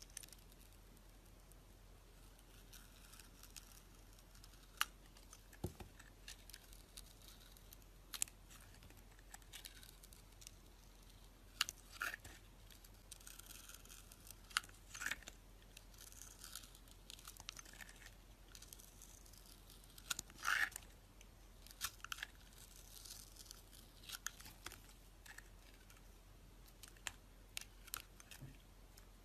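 Utility knife blade cutting and scraping a bar of soap: faint, crunchy scrapes and scattered sharp clicks as the gritty coated crust is pared off and curls of soap are shaved away.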